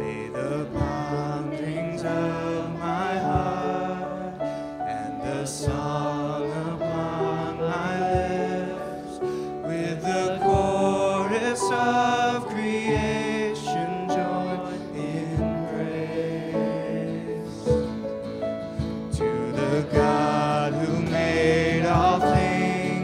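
Congregational hymn singing with instrumental accompaniment: sung melody lines held and moving from note to note, with light strokes from the accompanying instruments.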